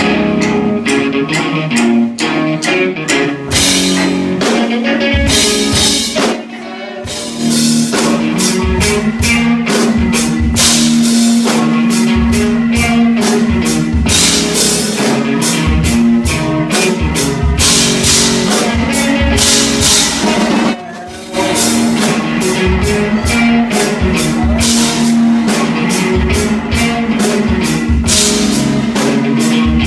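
A live rock band playing loudly on drum kit and guitar. The music drops out briefly about seven seconds in and again about twenty-one seconds in.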